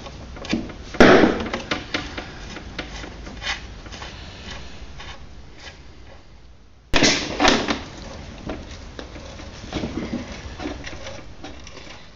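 Hand tools working on snowmobile engine mount bolts: metal clinks and small clicks, with two sharp knocks, one about a second in and one about seven seconds in.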